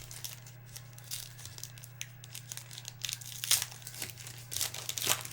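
Foil trading-card pack wrapper crinkling and tearing as a pack is opened and handled: a run of short, irregular rustles that gets busier about three seconds in, over a steady low electrical hum.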